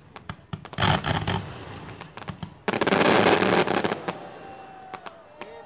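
Aerial fireworks going off: scattered sharp pops, a short burst about a second in, then a loud dense crackle lasting over a second from about two and a half seconds in.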